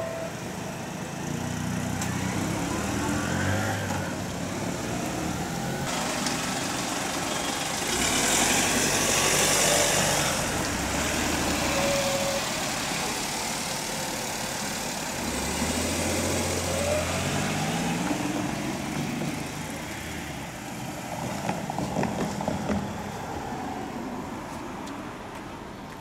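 Road vehicles at a railway level crossing: cars and a small truck idling, then pulling away and passing one after another, their engines rising in pitch as they speed up. A passing vehicle's hiss is loudest about eight to ten seconds in.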